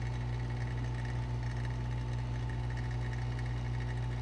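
Vacuum pump running steadily with a constant low hum, drawing the chamber down to about 12% of atmospheric pressure.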